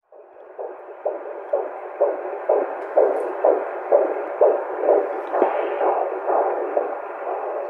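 Fetal heartbeat as heard through a Doppler monitor: a rhythmic whooshing pulse at about two beats a second, fading in at the start.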